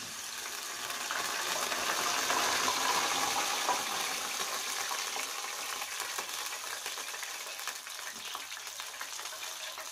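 Hot cooking oil in a frying pan sizzling and spattering. The sizzle starts suddenly, is loudest a few seconds in, then slowly eases.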